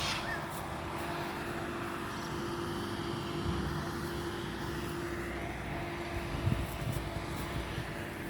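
A steady engine drone holding one pitch throughout, with a brief low thump about two-thirds of the way through.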